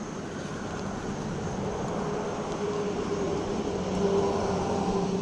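A distant engine's steady hum, growing louder over a continuous rushing noise.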